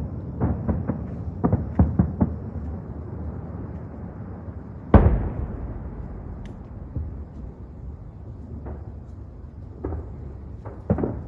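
New Year's aerial fireworks bursting. A quick string of bangs comes in the first couple of seconds, one loud boom about five seconds in, and a rumble carries on between scattered bangs, with another quick cluster near the end.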